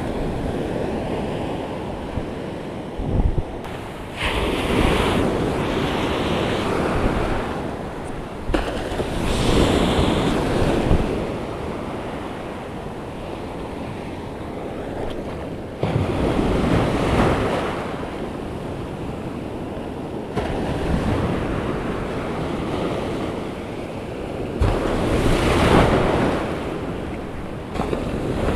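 Ocean surf breaking and washing up the beach, one wave after another swelling and fading every several seconds, with wind buffeting the microphone.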